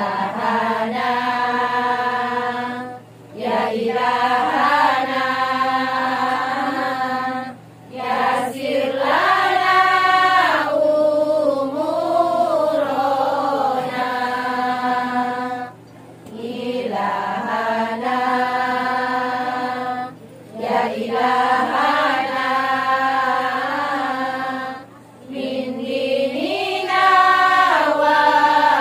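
A group of women chanting sholawat, Islamic devotional songs praising the Prophet, together in unison without instruments. The singing comes in long melodic phrases broken by short breath pauses every four to five seconds.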